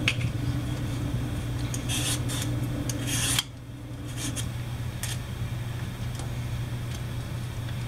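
Hand vegetable peeler scraping strips of skin off a raw sweet potato in short, repeated strokes, over a steady low hum.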